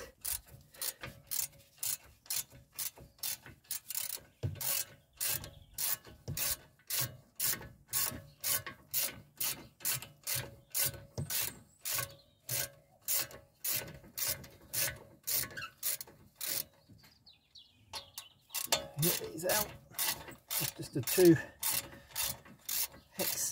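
Ratchet wrench with a 7mm hex bit turning the brake caliper's hex bolts, its pawl clicking on each back-stroke, about two or three clicks a second, with a short pause about two-thirds of the way through.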